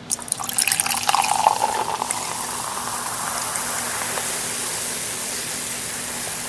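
Carbonated energy drink poured from an aluminium can into a plastic bowl, splashing and glugging for the first couple of seconds. It then settles into a steady fizzing hiss as the foam in the bowl bubbles.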